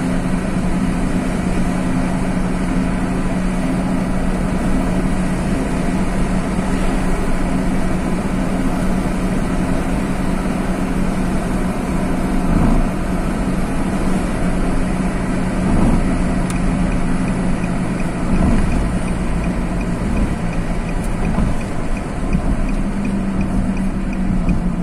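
Inside a moving car: a steady engine hum with tyre and road noise. A faint, regular ticking comes in about two-thirds of the way through.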